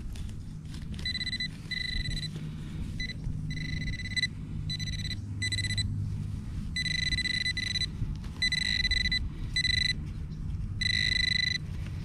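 Metal detector sounding a steady high beep in repeated on-off bursts of uneven length, signalling metal in the dig hole, over a low rumble.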